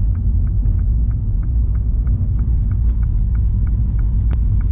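Cabin sound of a 2020 MINI John Cooper Works GP, its 2.0-litre turbocharged four-cylinder engine at low revs (about 1,600 rpm) while cruising slowly: a deep, steady rumble of engine and road. A light regular ticking about five times a second runs over it, with one sharp click a little after four seconds in.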